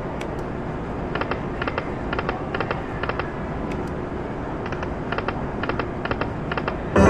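Slot machine spinning, with quick clusters of sharp clicks as the reels come to a stop spin after spin, over a steady casino din. A loud musical jingle from the machine cuts in right at the end.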